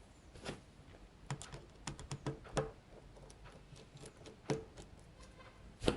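Irregular light clicks and taps of a precision screwdriver and tiny screws being worked on a smartphone's frame during a teardown, with a quick cluster in the middle and a louder tap near the end.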